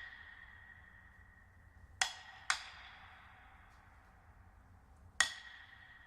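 Sparse struck percussion from a demo track played through a Klipsch RSB-11 soundbar: three sharp, quiet strikes, two close together about two seconds in and one near the end, each leaving a high ringing tone that fades slowly.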